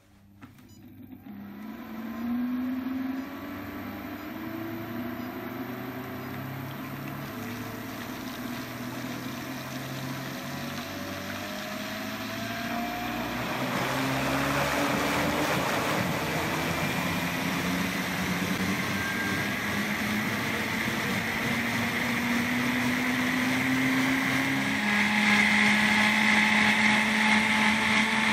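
Bugatti Vento high-speed blender motor starting up and running, its pitch climbing in steps as the speed setting is raised, getting louder about halfway through and again near the end.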